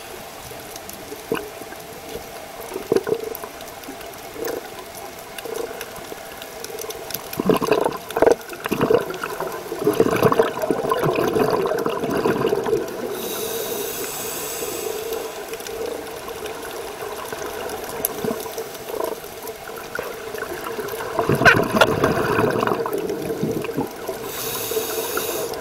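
Scuba regulator breathing heard underwater: a hissing inhale through the regulator and a burst of bubbling exhaust, twice, over the steady hiss of the water.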